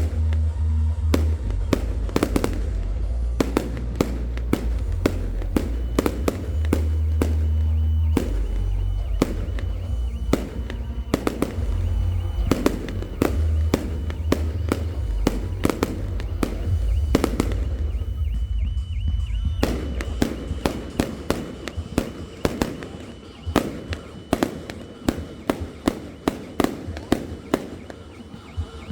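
Fireworks going off: many sharp bangs and crackles in quick succession, more spaced out and distinct near the end, over loud music with heavy bass from a sound system.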